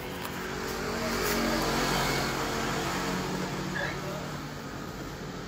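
Canon photocopier running: a steady mechanical whir with a low hum that swells about a second in and slowly eases off toward the end.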